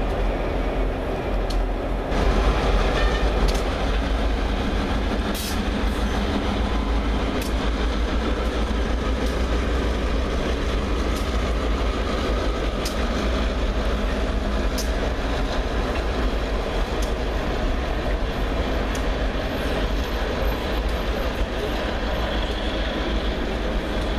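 Freight train cars rolling past at close range: a steady rumble of wheels on rail with a sharp click about every two seconds.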